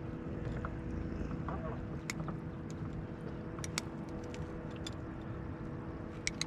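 A steady low hum under a low rumble, with a few scattered light clicks and taps.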